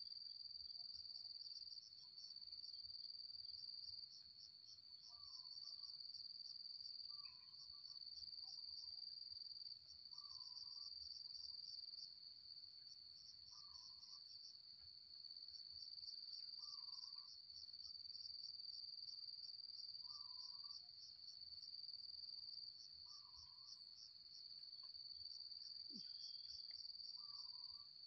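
Steady chorus of insects: a continuous high shrill with a fast pulsing trill over it. A faint short call repeats about every three seconds beneath it.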